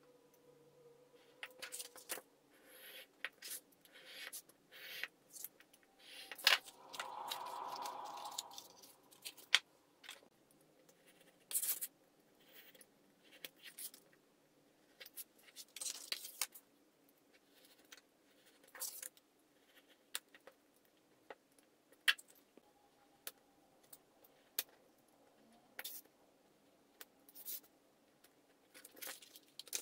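Craft-knife blade cutting through black paper on a cutting mat: a series of short, scratchy cuts with small clicks and taps between them, and one longer stroke about seven seconds in.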